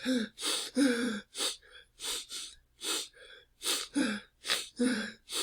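An adult man crying: a run of short, gasping sobbing breaths, about two a second, several with a brief whimpering rise and fall in pitch.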